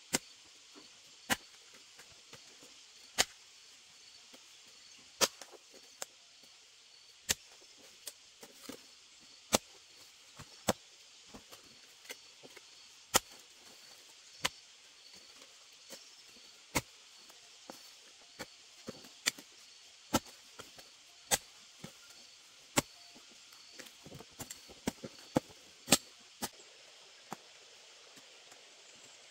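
Hoe blade striking clay soil in sharp single strokes about every second or two, coming quicker for a handful of strokes near the end.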